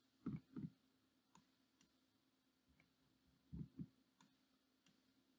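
Faint computer mouse clicks in a near-silent room: two quick pairs of clicks about three seconds apart.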